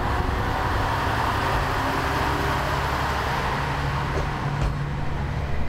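Kishū Railway's small diesel railcar passing close by on the single track: a steady engine hum under the rolling noise of the train, at an even level.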